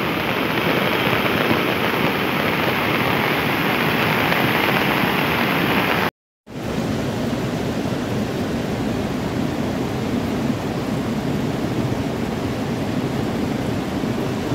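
Cold lahar floodwater rushing down a river channel: a loud, steady roar of churning water. About six seconds in it cuts out briefly, then resumes duller.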